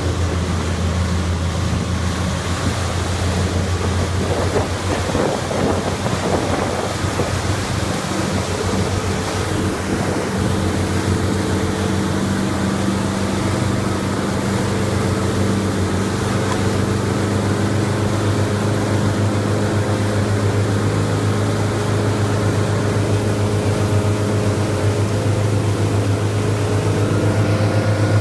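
Motorboat engine running steadily under way towing a tube, with the wake churning and wind buffeting the microphone; the engine grows a little louder near the end.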